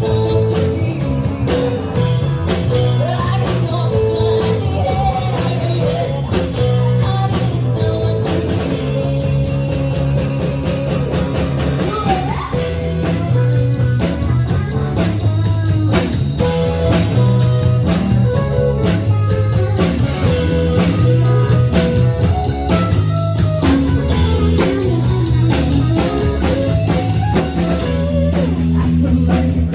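Rock or blues song with singing, guitar and drums, with a heavy bass line.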